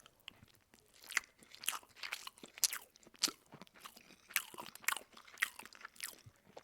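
Open-mouthed chewing: wet lip smacks and crunching bites, several a second and irregular, starting about a second in after a near-silent moment.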